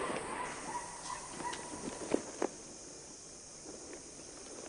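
A quiet lull with faint hiss and a few light clicks, and two sharper knocks about a third of a second apart, about two seconds in.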